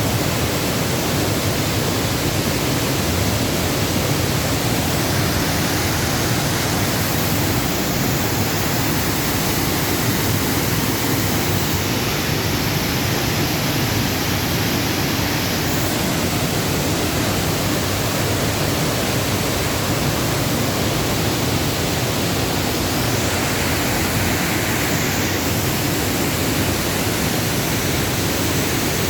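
Upper Düden Waterfall, a steady rush of falling water, even and unbroken throughout.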